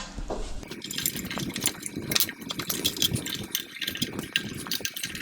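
Irregular rubbing, scraping and clicking as a urethane tire is worked by hand and tool onto the lower wheel of a 10-inch band saw.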